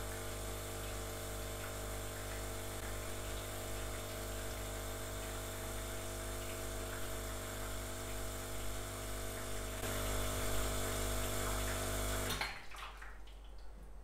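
La Spaziale Mini Vivaldi II espresso machine's vibratory pump running steadily, with hot water hissing out of the brew group during a brew. It gets a little louder about ten seconds in, then cuts off suddenly about two seconds later as the brew stops.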